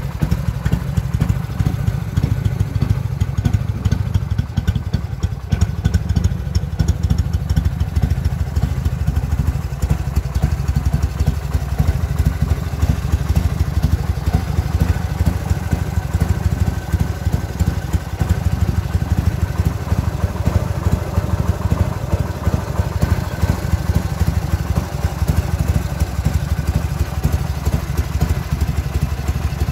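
1979 Harley-Davidson FLH Shovelhead's V-twin engine idling steadily, with no revving.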